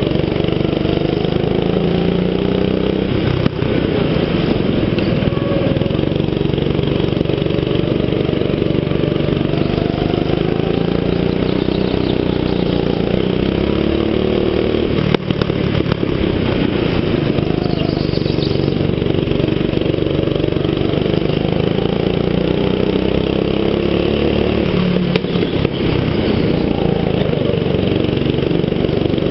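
Go-kart engine running under throttle, heard from the driver's seat, its pitch rising and falling as the kart speeds up on the straights and slows into the corners. A single sharp knock about halfway through.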